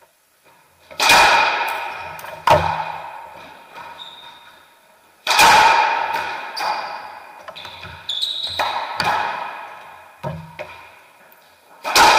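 Racquetball rally: a series of sharp, echoing smacks as the rubber ball is hit by racquets and rebounds off the court walls, a second or more apart, with the loudest about a second in, near the middle and at the very end. Short sneaker squeaks on the hardwood floor come in between.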